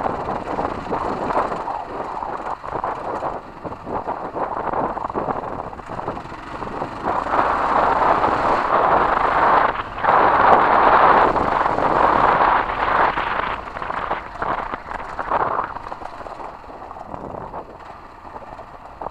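Kawasaki KLR 650 single-cylinder dual-sport motorcycle riding over a rough gravel road: engine running under wind buffeting on the camera microphone, with many small knocks and rattles from the bumpy surface. It grows louder about a third of the way in and eases off near the end.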